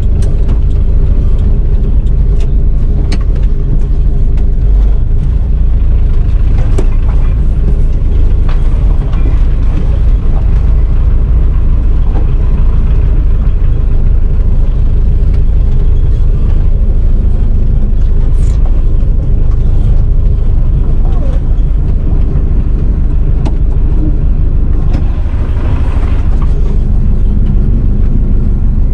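A van's engine running steadily, heard from inside the cab as it is driven, with a deep rumble and a few light clicks and rattles.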